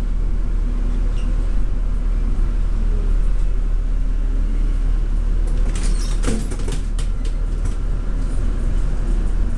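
Hino HU3K city bus heard from inside the cabin while under way: a steady low engine and road rumble, with a short cluster of rattles and clicks about six seconds in.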